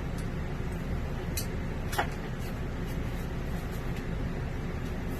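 Steady low background rumble, with a couple of brief clicks, the sharpest and loudest about two seconds in.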